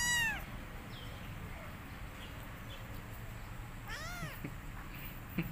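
Young house cat meowing twice: a loud short meow that rises and falls in pitch at the start, and a softer one about four seconds in, with a few faint chirps between. A brief click near the end.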